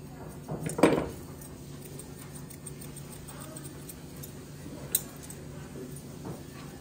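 Grooming shears snipping a Scottish terrier's coat in sparse, light metallic clicks over a low steady hum, with a louder short knock about a second in and a sharp click near five seconds.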